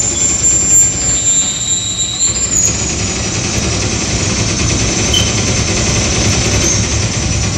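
Harsh electronic noise from a DIY oscillator circuit fed through a Line 6 DL4 delay pedal. A high-pitched squeal holds for about two and a half seconds, joined for its last second or so by a lower whistle, then cuts out. A dense, low, grinding noise runs on underneath.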